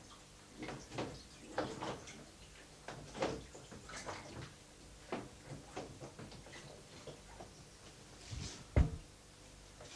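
Plastic photo tray being rocked and shifted by hand in a sink: scattered light knocks and scrapes, with one louder knock near the end.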